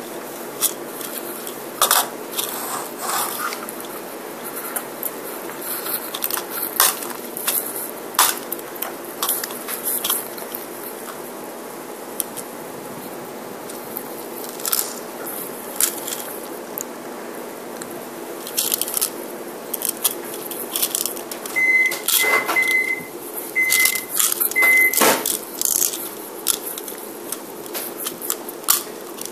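Scattered clicks and light clatter of hands handling a small plastic toy and kitchen things. About three-quarters through comes a run of five short electronic beeps at one pitch, three then two: a kitchen appliance's keypad being pressed.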